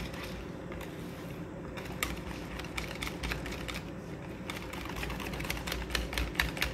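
A utensil stirring thick cheesecake filling in a bowl, clicking against the side of the bowl. The clicks are sparse at first and come faster and more steadily toward the end, a few a second.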